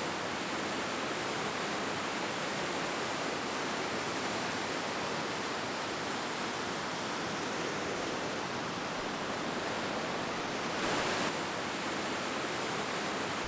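Steady rush of a fast-flowing river, an even hiss that swells slightly about eleven seconds in.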